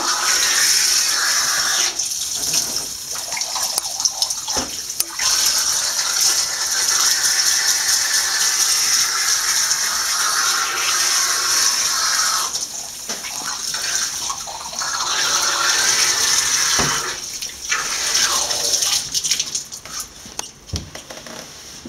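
Handheld shower sprayer running in a bathtub, warm water spraying over a wet cat to rinse out the first cleaning shampoo. The spray dips briefly a couple of times and dies down near the end.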